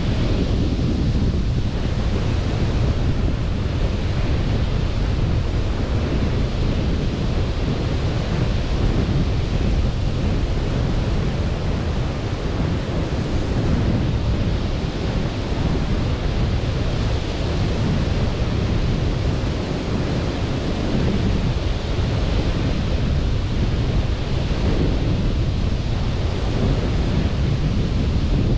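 Sea waves washing onto a beach: a steady rush that swells and eases now and then. Wind rumbles on the microphone underneath it.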